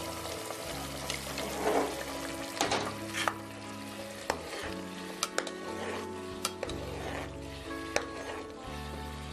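A metal spatula stirs mutton paya curry in a metal pot while the gravy sizzles, with several sharp clinks and scrapes as the spatula knocks the pot's sides. Background music plays underneath.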